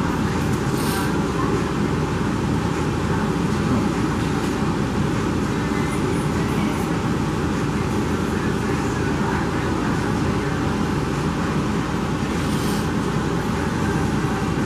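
A steady low background rumble, with a couple of short clicks about a second in and again near the end.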